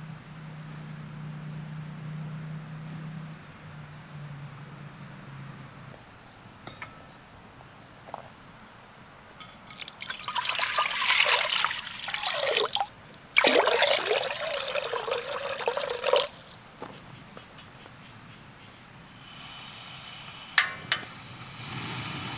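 Water being poured in two long splashing pours of about three seconds each, with a short break between them. Two sharp clicks follow near the end.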